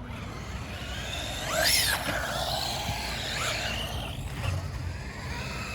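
Small electric RC trucks' motors whining, the pitch rising and falling as they speed up and slow down on the ramps, with one louder surge a little under two seconds in.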